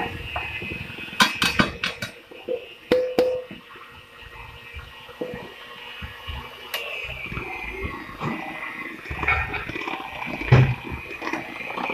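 Handheld electric mixer running, its beaters churning thick cupcake batter and flour in a stainless steel bowl, with a steady motor whine. A few sharp knocks of metal on metal come in the first three seconds, and the whine dips slightly in pitch a little past halfway.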